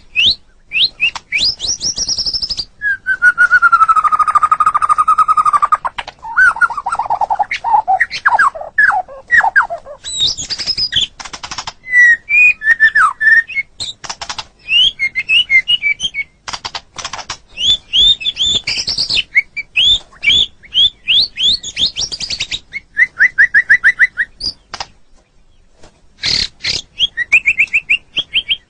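White-rumped shama (murai batu) singing a long, varied song: clear whistles, quick repeated notes and trills in changing phrases, with a drawn-out falling whistle about three seconds in and a brief pause near the end.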